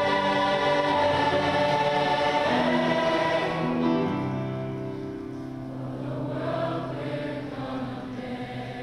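Large mixed choir singing sustained chords, strong at first and then softer from about four seconds in.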